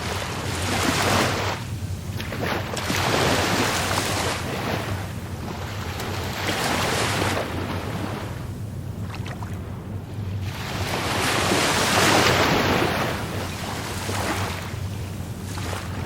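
Rough Caribbean Sea waves surging and breaking, four swells of surf noise rising and falling over a steady low rumble, the loudest about twelve seconds in.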